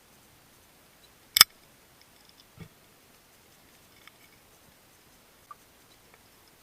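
One sharp, loud click about a second and a half in, followed by a duller knock and a few faint scattered ticks.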